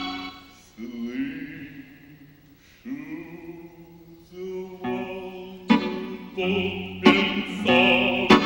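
A man singing a song into a microphone with instrumental accompaniment. A held note fades out at the start, softer phrases follow, and the singing grows louder from about five seconds in.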